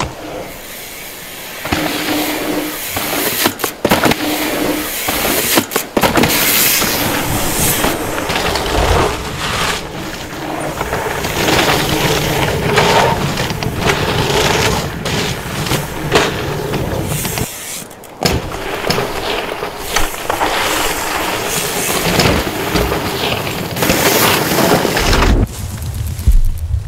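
Mountain bikes ridden fast downhill over dirt: continuous rolling and rushing noise from tyres and the ride, broken by frequent sharp knocks and rattles from the bike over roots, bumps and landings, easing off near the end.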